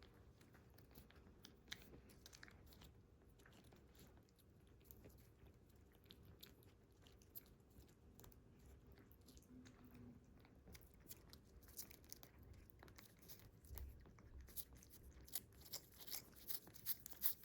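Cats licking a liquid snack: quiet, wet smacking and lapping clicks that come faster and louder toward the end.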